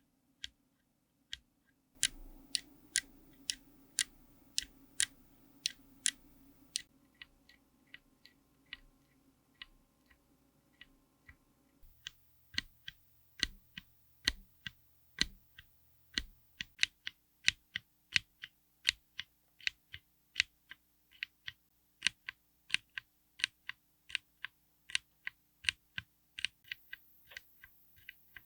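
Tactile mechanical keyboard switches pressed one key at a time, a steady series of sharp keystroke clicks, about two a second and quickening to about three a second in the second half. The background changes abruptly every few seconds as one switch's recording gives way to the next.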